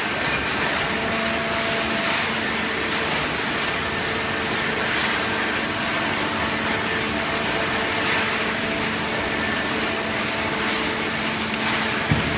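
Hydraulic cardboard baler running, its power unit giving a steady hum over a hiss, with a single low thump near the end.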